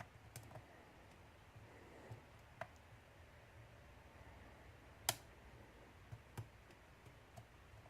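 Faint, scattered clicks of a lock pick and tension wrench working the stuck pins of an American Series 1305 padlock, about half a dozen, the loudest about five seconds in; otherwise near silence.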